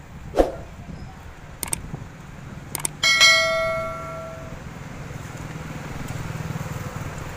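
Subscribe-button animation sound effect: a short pop, two clicks, then a bright notification-bell ding about three seconds in that rings and fades over a second or so. Low street traffic noise underneath.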